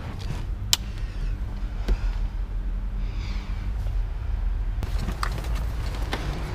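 Several sharp clicks and knocks, with a brief scratchy rustle, as plastic car trim and wiring are handled, over a steady low hum.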